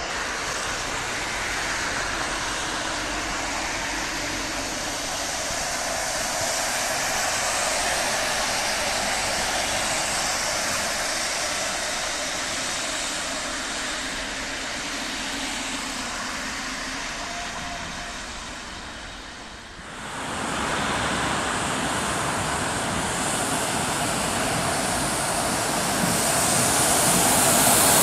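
Road traffic on a wet street: cars and city buses passing, their tyres hissing on the wet asphalt. The sound changes abruptly about 20 seconds in, then a bus approaches and grows louder near the end.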